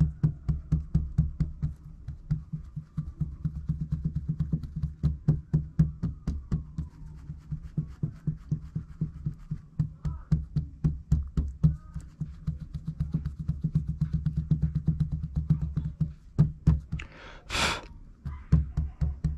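Plastic container of wet plaster of Paris being rapidly pounded and jiggled on a tabletop, a fast run of dull knocks several times a second, to shake air bubbles out of a freshly poured lure mold. A brief hiss comes near the end.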